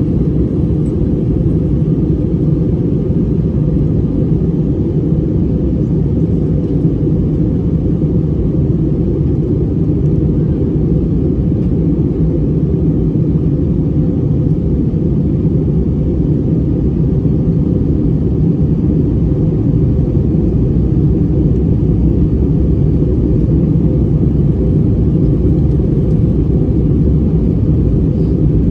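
Steady, loud, low rumble of an Airbus A321 heard inside the passenger cabin in flight: engine and airflow noise that stays level throughout.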